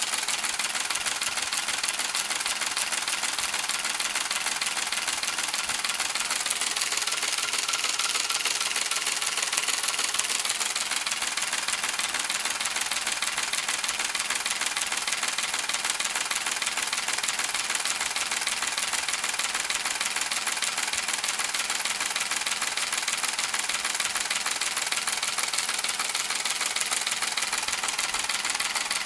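Homemade Otis Carr-style flying saucer model running, its rotor spinning against a brush commutator: a steady, rapid mechanical clatter and rattle.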